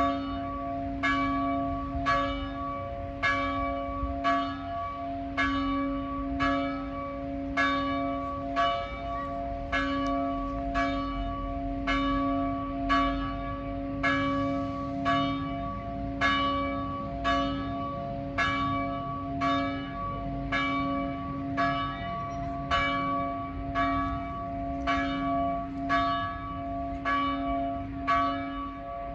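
The largest of the church's three bells, cast in 1948 by the Silesian Bell Foundry, tolling steadily with a stroke about once a second. Each stroke rings on over a steady low hum.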